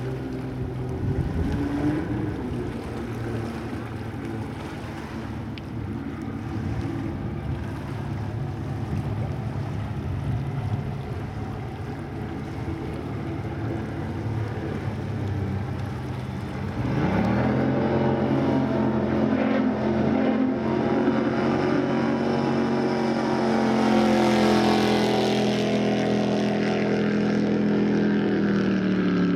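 Supercharged Chevrolet V8 of a V-drive race boat, freshly rebuilt along with its blower, running steadily at lower revs. About halfway through the throttle opens and it gets suddenly louder, the pitch climbing to a high steady run that starts to drop near the end.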